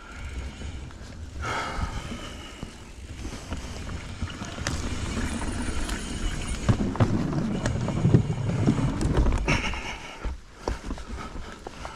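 Knolly mountain bike rolling fast down a dirt singletrack: tyre rumble, chain and frame rattle and wind on the microphone. The ride gets rougher and louder through the middle, with a run of sharp knocks and clatter over rough ground, then eases near the end.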